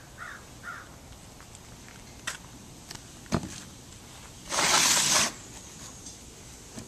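Cardboard shoebox being handled: a few sharp clicks and knocks, then a loud rustling scrape lasting almost a second, about two thirds of the way through. Two short bird calls come near the start.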